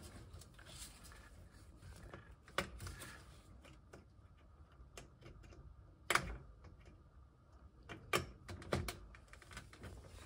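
Scattered plastic clicks and knocks as a wiring connector is pushed into a gas boiler's circuit board and its cables and casing are handled. The sharpest clicks come about six and eight seconds in.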